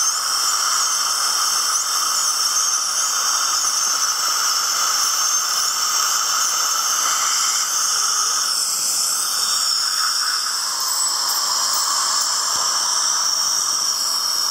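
Dental instruments running in the mouth: a continuous loud hiss of high-volume evacuation suction with the high-pitched whine of an ultrasonic scaler tip spraying water.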